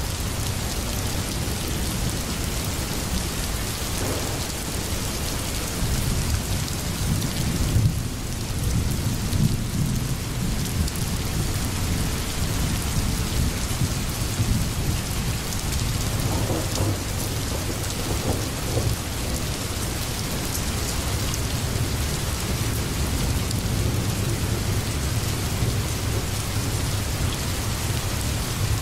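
Steady rain ambience: an even hiss of falling rain over a constant low rumble.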